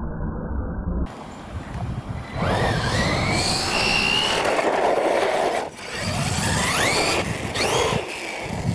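Losi LMT radio-controlled monster truck on a 3S LiPo battery driving hard, its brushless motor whining up in pitch under throttle over drivetrain and tyre noise. The whine cuts out briefly a little past halfway, then climbs again twice near the end.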